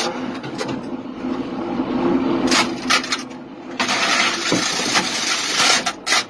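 Steady mechanical hum of a self-propelled howitzer's machinery, heard from inside the turret, with several short metallic clanks and knocks as the crew handles the gun.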